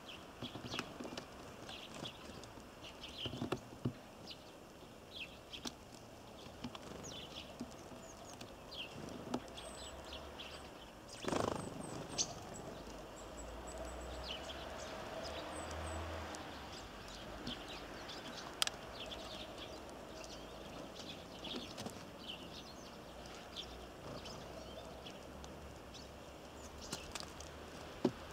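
Small birds at a feeder calling with many short high chirps, mixed with light taps and clicks, and one louder brief rush of noise about eleven seconds in.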